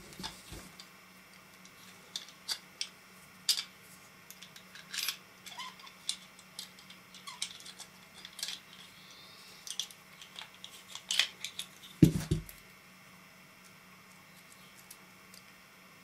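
Small clicks, taps and light scrapes of a plastic and metal camera belt-clip mount and its pin being handled and worked with a small Allen wrench, with a louder knock about twelve seconds in.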